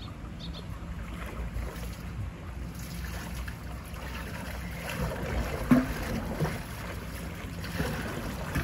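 Water sloshing and splashing as a hippopotamus wades and swims through its pool, with a sharper splash a little past halfway. Wind rumbles on the microphone.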